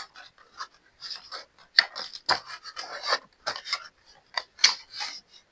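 Packaging being handled as items are unpacked: a run of irregular rustling scrapes and small sharp clicks.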